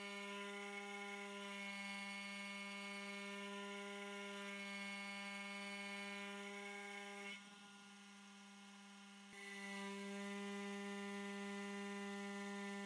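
Spindle of a Carvera Air desktop CNC running steadily while milling a resin blank on the 4th-axis rotary chuck: an even, pitched motor hum with a whine above it. It drops quieter for about two seconds past the middle, then returns.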